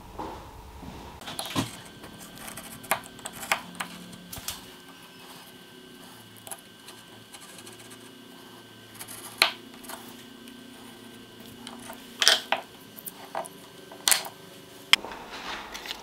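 Hand work at a workbench: a marking knife scratching around the edge of a wooden bow-tie key to score its outline, with about eight sharp clicks and taps from handling the knife and the workpiece.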